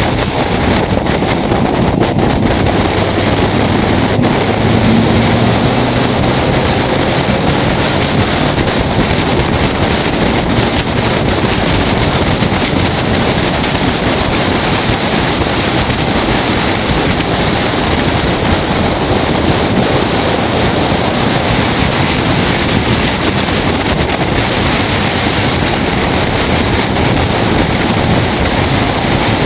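Race car at speed on a circuit, heard through a camera mounted outside on its bonnet: heavy wind buffeting on the microphone and road roar largely cover the engine. A faint engine note rises in pitch a few seconds in.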